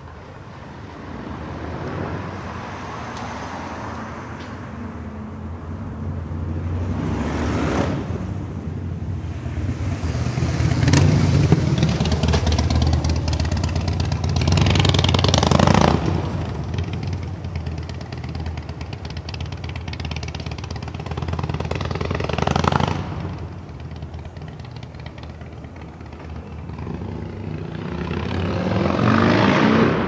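Road traffic: several motor vehicles pass close by one after another, each rising and fading away, the loudest about halfway through and cutting off suddenly.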